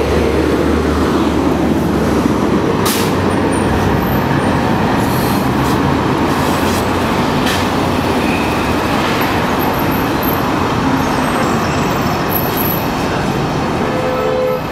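Steady rumbling noise of a running vehicle or traffic, without music or speech.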